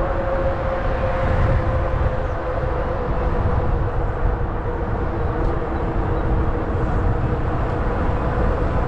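Riding noise on a Zota Zephyr fat-tire electric bike: a steady, fluttering low rumble of wind and rolling, with a steady whine from the bike underneath.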